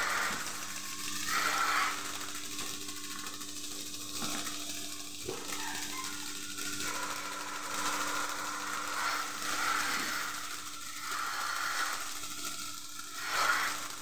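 Milking parlour machinery running: a steady hum from the vacuum system with the mechanical clicking of the milking units' pulsators, and a few brief louder rushes of air noise near the start and near the end.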